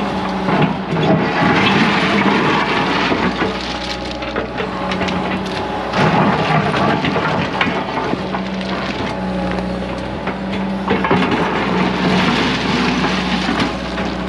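Excavator's diesel engine running steadily while its bucket drags and pushes crushed stone and rock, the stones clattering, grinding and sliding in several bouts of rattle.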